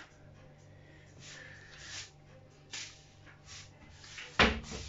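Faint handling noises as hands work a palmful of seeds and planting medium, then a sudden loud thump about four and a half seconds in.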